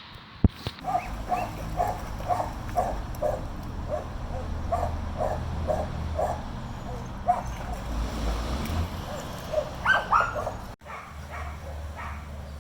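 A dog barking over and over, about two barks a second, then a few louder, higher-pitched yips near the end.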